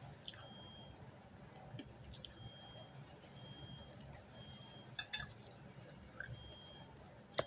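Faint chewing and mouth sounds from someone eating, with a few short sharp clicks, the loudest near the end.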